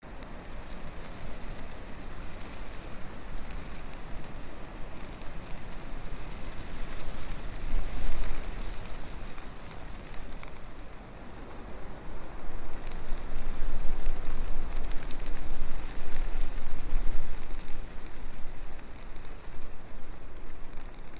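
Wind and propeller-wash noise buffeting the microphone of a flying quadcopter's camera: a steady rushing hiss over a low rumble, swelling about eight seconds in and again for several seconds past the middle.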